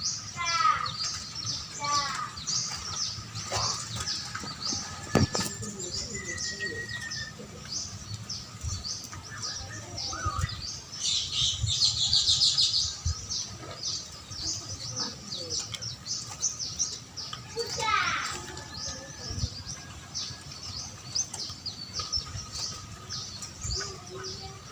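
Birds chirping and calling continuously, many short high chirps, with a run of quick descending calls at the start and again about three quarters of the way through, and a dense burst of high chirping near the middle.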